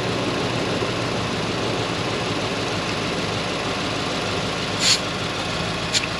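A vehicle engine idling steadily. Near the end come two short, sharp bursts of air hiss as an automatic tyre deflator is unscrewed from the tyre's valve stem.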